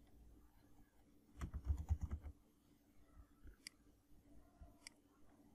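Computer keyboard typing: a quick run of keystrokes about a second and a half in, then two single clicks a little later.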